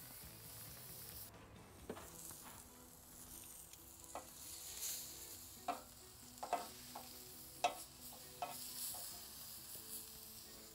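Hanger steaks sizzling over hot charcoal on a grill grate, a steady faint hiss. Metal tongs click sharply against the grate and meat about half a dozen times as the steaks are handled and flipped.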